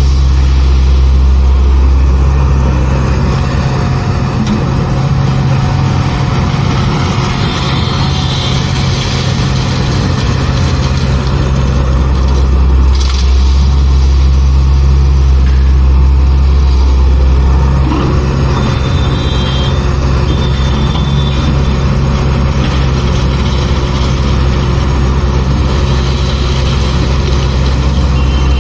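Sany SY140C-9S excavator's diesel engine running steadily under hydraulic load as the machine swings and works its bucket, its low drone shifting with each movement. A high whine comes in briefly twice.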